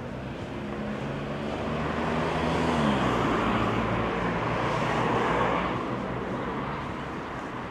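A motor vehicle driving past on the street: tyre and engine noise swell, peak about three to five seconds in, then fade away, and its low engine note drops in pitch as it goes by.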